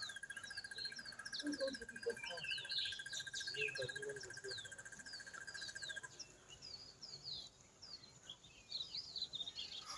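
Birds chirping: many short, quick falling chirps throughout, with a steady high-pitched whine underneath that stops about six seconds in.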